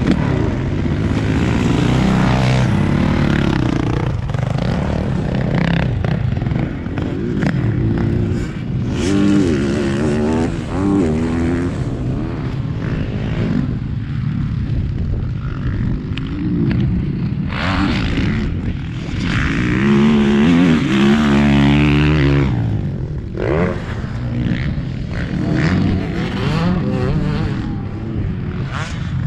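Motocross bike engines revving hard and passing one after another, their pitch rising and falling as riders throttle up and back off for the jumps. The loudest pass comes about two-thirds of the way through.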